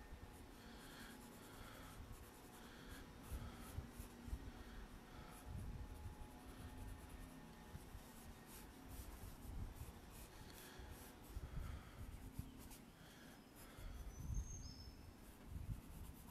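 Pencil scratching on paper in repeated, faint sketching and shading strokes.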